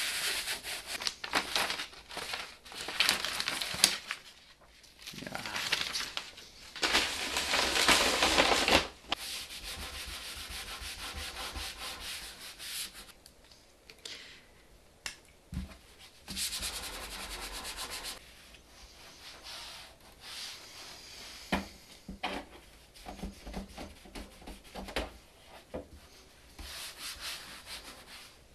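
Paper towel wet with isopropyl alcohol scrubbing and wiping the plastic case of an Apple Lisa computer, in uneven bursts of rubbing with a few sharp knocks.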